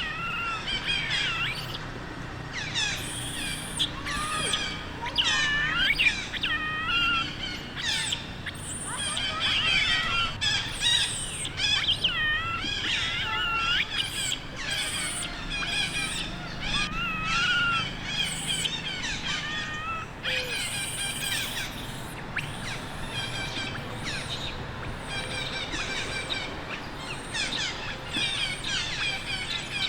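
Baby monkey crying: a steady string of high, wavering squeals and whimpers that bend up and down in pitch, the cries of an infant begging its mother to let it nurse.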